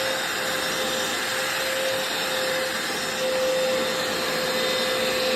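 Hoover FloorMate hard floor cleaner's suction motor running steadily in dry mode as it sucks up spilled water, an even motor whine over a rush of air. The owner does not like the sound of this motor.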